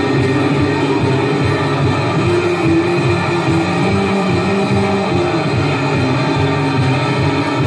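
Live rock band playing loud, dense music, with held electric-guitar and keyboard notes that shift about once a second over a steady low drone. It is recorded raw on a compact camera's built-in microphone.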